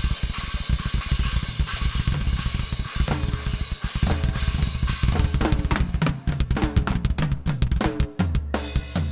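Yamaha drum kit played hard and fast: kick drum and snare under a wash of crashing cymbals, then from about five seconds in the cymbals drop away and quick ringing tom hits run around the kit.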